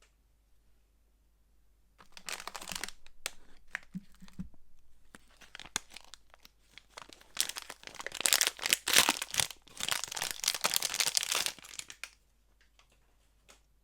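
Soap packaging being unwrapped by hand: crinkling and tearing of the wrapper, in two spells, the second longer and louder, stopping about two seconds before the end.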